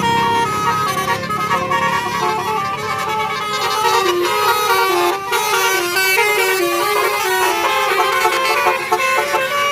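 Bus basuri telolet horn playing a melody, its tones stepping up and down in pitch several times a second without a break.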